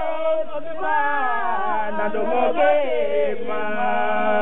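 A man chanting, his voice sliding up and down between notes and then holding one long steady note from about three and a half seconds in.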